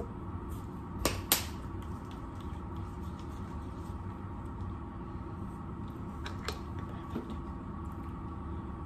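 Two sharp plastic clicks about a second in, as the flip cap of a plastic creamer bottle snaps shut and the bottle is set down on the counter, then a few fainter taps as a plastic tumbler and its lid are handled, over a steady low room hum.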